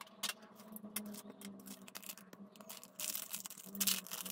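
Crinkling and rustling of a thin plastic sachet being handled, loudest about three seconds in, after a few light clicks and taps.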